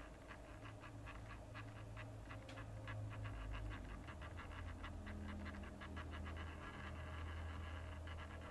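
Faint, rapid ticking, about six ticks a second, over a low hum: a small motorized turntable turning the plate.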